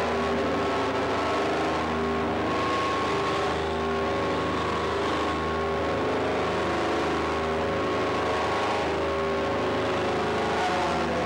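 Experimental drone music played live: dense layers of sustained, slowly shifting tones over a hiss and a low hum, holding a steady level with no beat.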